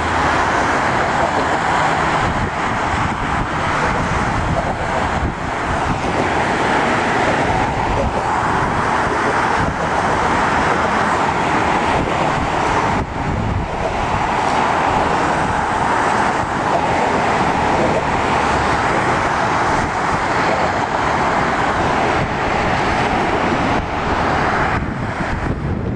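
Steady expressway traffic: a continuous wash of tyre and engine noise from cars and trucks passing on the highway ramps, with brief small lulls.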